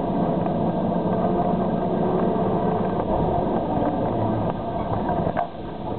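Komatsu PC5500 hydraulic mining shovel working, heard from inside its operator's cab: a steady drone of its diesel engines and hydraulics as it swings from the haul truck back to the dig face. The level dips slightly near the end, and there is a brief click.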